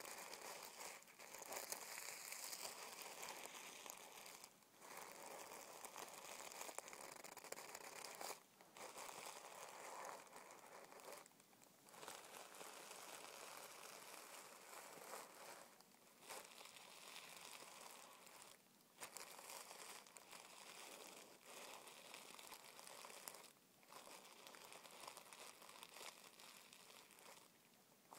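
Fingers rubbing, scratching and crinkling a crumpled sheet of tissue paper: a soft, continuous crackly rustle broken by short pauses every few seconds.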